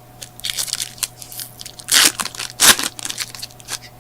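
Crinkly wrapper of a baseball card pack being torn open and crumpled, a run of irregular crackles with two louder rips about two seconds in and a little later.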